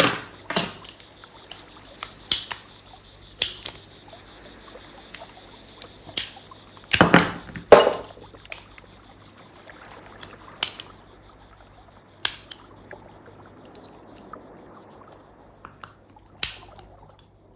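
Ratchet secateurs working through a 25 mm branch in repeated strokes: sharp clicks and crunches a second or so apart, with a louder cluster of crunches about seven to eight seconds in. At this thickness the cut goes poorly.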